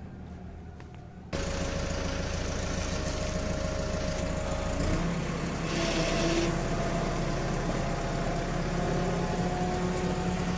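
Engine running steadily, cutting in abruptly a little over a second in, with a whining tone that steps up in pitch about five seconds in and a brief hiss around six seconds.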